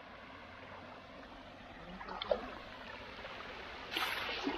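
Creek water running steadily, with a louder burst of splashing near the end.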